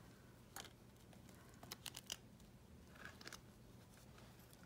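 Faint handling sounds: a few light ticks and rustles of paper bills and a clear plastic binder envelope being moved and flipped.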